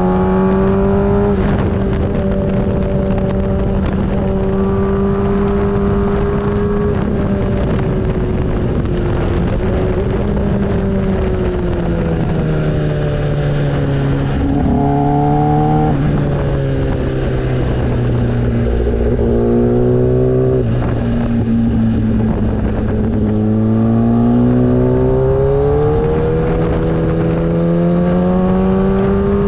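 Motorcycle engine running under way on a ride, its pitch holding steady for a while, then dropping and climbing again several times with throttle and gear changes.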